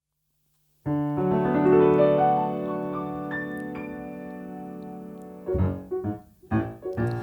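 Piano introduction: after a moment of silence a spread chord rings out and slowly fades, then a few short rhythmic chords lead into the song.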